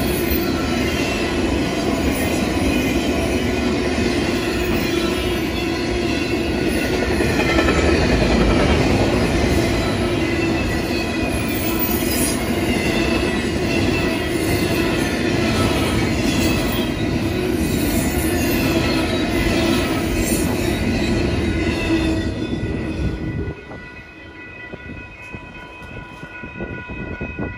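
Intermodal freight train rolling past: loud steady wheel-on-rail noise with wheel squeals sliding down in pitch. About 23 seconds in, the end of the train passes and the noise drops away suddenly, leaving the grade crossing's warning bell ringing steadily.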